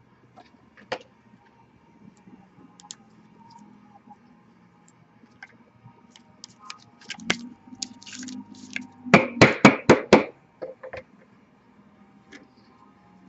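Trading cards and their packaging being handled on a table: scattered light clicks and a brief rustle, then a quick run of about six sharp taps a little after nine seconds in.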